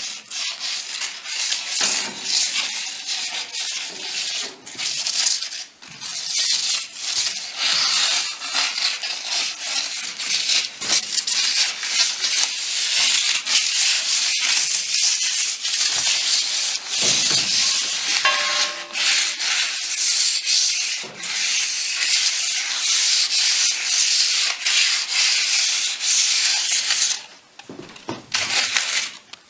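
Vegetable shortening being rubbed over the top of a wood cookstove to season it: a continuous scratchy rubbing with quick back-and-forth strokes, stopping about two seconds before the end.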